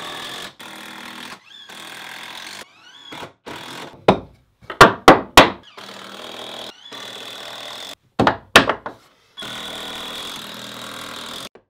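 Cordless impact driver driving deck screws through 2x4 wood blocking into wall studs, its motor whining in several runs. A few loud, sharp knocks stand out: a quick run of four about a third of the way in and two more about two-thirds in.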